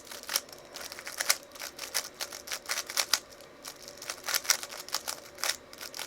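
Plastic 3x3 Rubik's Cube being turned quickly by hand during a solve: irregular bursts of sharp clicks and rattles from the layers snapping round, several a second.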